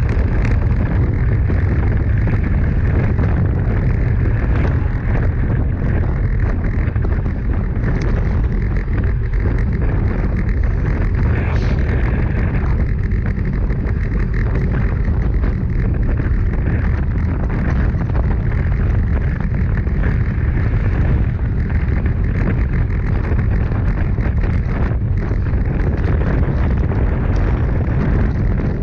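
Steady heavy wind buffeting on a handlebar-mounted action camera's microphone as a road bike rides at about 45 km/h, a deep rumbling noise.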